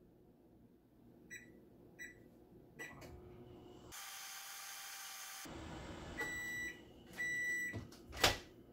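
Whirlpool over-the-range microwave oven: two short keypad beeps as it is set, then a steady hum while it runs. Two longer end-of-cycle beeps follow, and a sharp click near the end as the door is pulled open.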